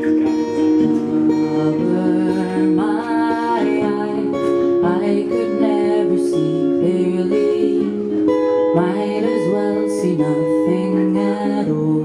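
A live song: a woman singing into a microphone over guitar chords.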